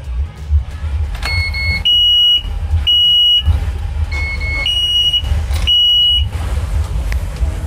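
Twin Volvo Penta boat engines being started from the helm: a low engine rumble, with two rounds of loud electronic beeps from the dash as each ignition is keyed, each round a short two-tone beep followed by two longer steady high beeps, about a second in and again about four seconds in.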